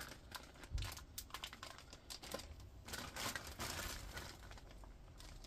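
Thin clear plastic packaging bag crinkling and crackling in irregular bursts as it is handled and opened to get a small tool out. There is one dull low bump just under a second in.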